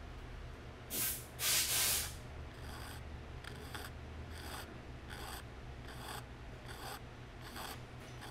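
Short rasping strokes of a hand tool fitting a repair patch into a Luger carbine's grip, taking off the high spots marked in black. Two longer, louder strokes come about a second in, then a steady run of short strokes at roughly one every 0.7 seconds.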